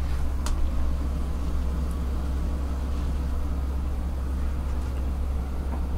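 Steady low rumble of an SJ InterCity passenger train heard from inside the carriage, with a single sharp click about half a second in.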